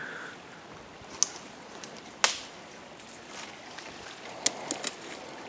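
Twigs and brush snapping and crackling as people scramble on a steep wooded slope: a few scattered sharp cracks, the loudest about two seconds in, with a quick cluster near the end.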